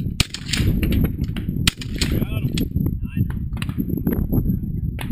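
Two shotgun shots about a second and a half apart, each trailing off in a short echo, over a steady low rumble of wind on the microphone.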